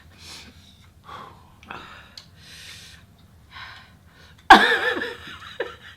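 A person breathing hard and gasping through the mouth against the burn of extremely spicy noodles: a string of short, hissy breaths, then a sudden loud voiced outburst about four and a half seconds in.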